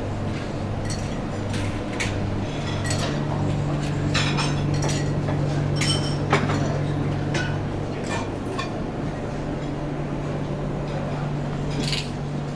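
Scattered light clinks of glassware, crockery and cutlery being handled, over a steady low hum.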